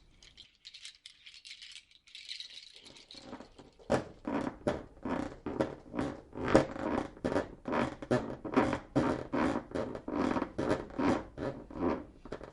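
Rattle-type hand percussion: a faint shaker-like hiss, then from about four seconds in a loud, fast, regular rattling of about three or four strokes a second.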